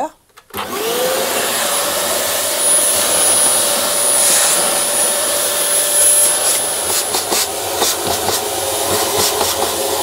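Vacuum cleaner switched on about half a second in, its motor whine rising and then running steadily with a high whistle, as it sucks lint from a tumble dryer's lint filter and filter housing. A few knocks come in the second half.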